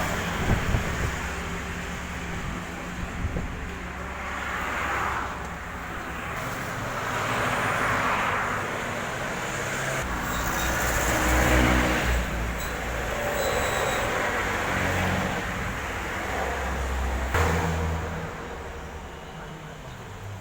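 Road traffic noise: a steady rush of passing vehicles, swelling and fading every few seconds as each goes by.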